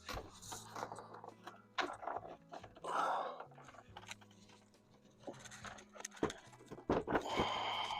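A person breathing heavily, with a few sharp knocks and scrapes of handling, the loudest cluster near the end.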